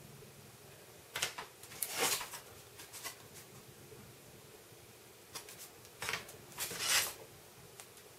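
Small cardstock art cards being handled and swapped in the hand: a few brief rustles and scrapes of card, the loudest near the end.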